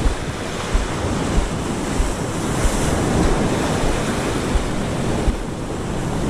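Ocean surf breaking and washing onto the beach, a steady rushing, with wind buffeting the microphone in irregular low thumps.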